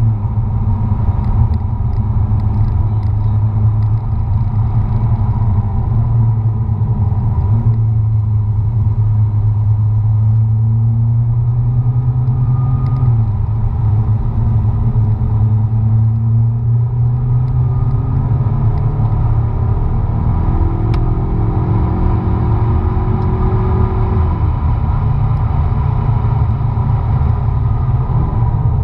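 McLaren MP4-12C's twin-turbo V8 under way at track speed, heard from inside the cabin as a loud, steady low drone with road rumble. Its pitch steps down once and rises again as the car brakes and accelerates through the corners.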